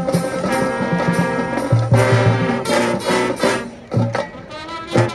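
High school marching band playing: brass chords over drumline hits, loud throughout.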